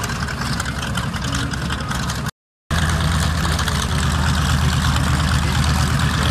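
North American B-25 Mitchell's twin Wright R-2600 radial engines running at low power as the bomber taxis, a steady, deep engine hum. About two and a half seconds in, the sound cuts out for a moment and returns a little louder.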